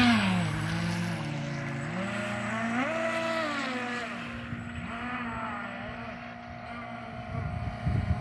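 Radio-controlled speedboat's motor whining, its pitch falling and rising several times with the throttle, growing fainter as the boat runs away across the water.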